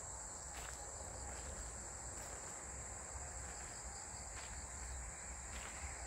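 Crickets chirring in a steady, continuous high-pitched drone, with a few faint soft clicks.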